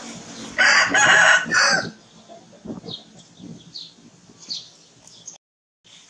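A rooster crowing once, a loud call of more than a second starting about half a second in, followed by a few faint bird chirps.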